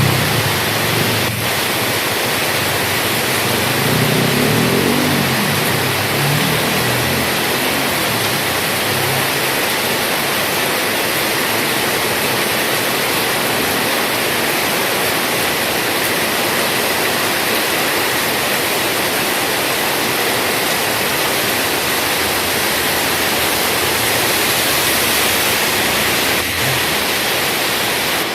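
Heavy rain falling, a steady dense hiss. A low rumble under it fades away over the first five or six seconds.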